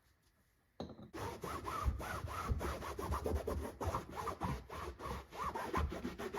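Rapid back-and-forth scrubbing strokes, about three a second, working foam cleaner into a stain on a car door panel; they start suddenly about a second in.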